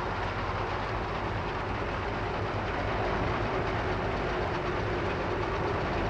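CLAAS MERCATOR combine harvester with its six-cylinder diesel running steadily while it cuts standing grain. The machine gives a constant mechanical rumble with a low hum and a steady mid-pitched drone.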